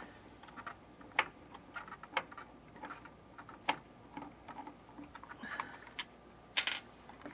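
Scattered light clicks and taps of a hand screwdriver and small screws against the plastic and metal housing of a cordless circular saw during disassembly. The clicks come at irregular spacing, with a louder cluster near the end.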